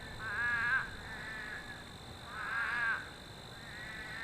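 Frogs calling after heavy rain: drawn-out, nasal, wavering calls about half a second each. Two loud calls come about two seconds apart, with fainter answering calls between them.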